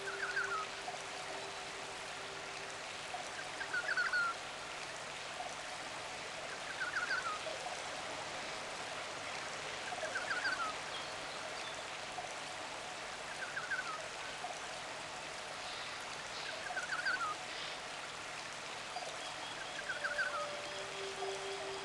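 Flowing stream water from a nature-sounds relaxation track, with a bird repeating a short falling chirp about every three seconds. A soft held musical note fades out near the start and comes back near the end.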